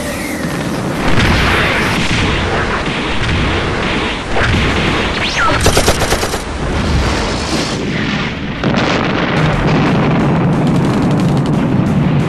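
Added action sound effects over music: continuous booms and blasts, with a quick rattle of rapid gunfire about halfway through.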